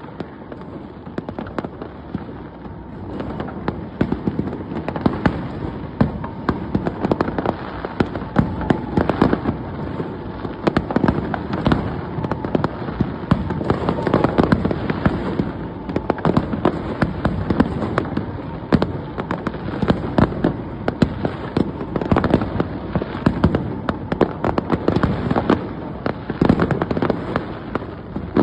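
A New Year fireworks display going off: many bangs and crackles overlapping in a dense, unbroken barrage.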